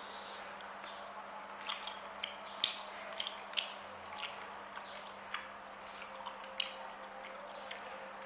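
Wet chewing and lip-smacking of a person eating octopus: a scattered series of short, sharp smacks.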